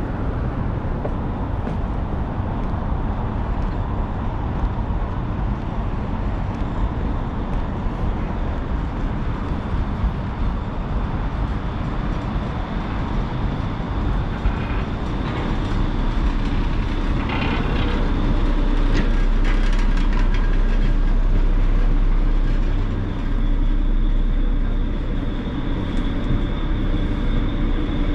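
Ferry's engines running, a steady low rumble under a rushing noise; the deep rumble swells for a few seconds past the middle, then eases.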